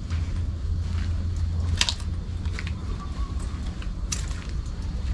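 A few scattered crunches and crackles, like footsteps on dry leaves and twigs, over a steady low rumble on the microphone.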